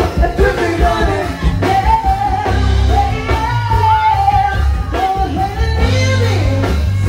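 Live go-go band playing: a singer holding long notes over heavy bass and drums.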